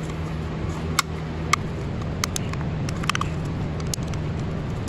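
A thin tool prying at a plastic connector cover, giving scattered light clicks and ticks, over a steady low mechanical hum.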